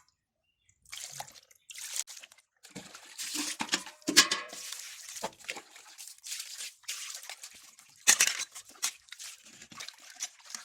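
Hands working raw fish pieces with salt in a bowl: irregular wet scraping, squelching and crinkling, with louder bursts about four seconds in and about eight seconds in.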